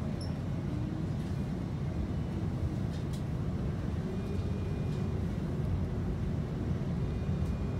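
Interior ride noise of a TTC CLRV streetcar under way: a steady low rumble as it runs along the track.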